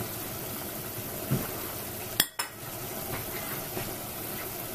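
A steady hiss with a few faint clinks of cutlery, and one sharp click a little past two seconds in.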